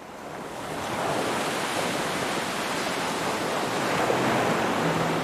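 Steady rush of ocean surf, fading in over about the first second. Music notes come in right at the end.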